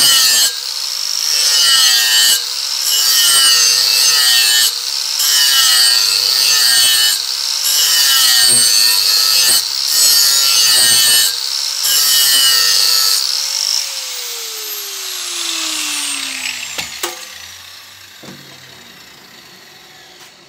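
Compact angle grinder with a flap disc grinding the cutting edge of a steel mower blade held in a vise, in strokes broken by short dips every two seconds or so. About 14 seconds in it is switched off and winds down with a falling whine, followed by a click.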